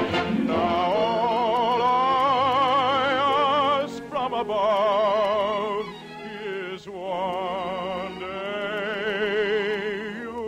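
Operatic singing with a wide vibrato on long held notes over musical accompaniment, with short breaks between phrases about four and six seconds in.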